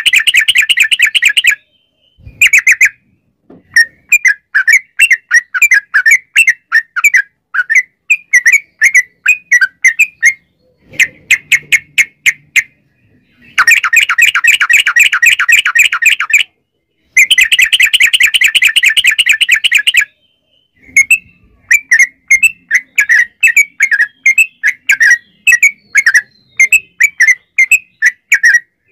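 Sooty-headed bulbul singing. Long runs of rapid, tightly packed trilled notes, about three seconds each, at the start and twice in the middle, alternate with strings of separate clear chirps.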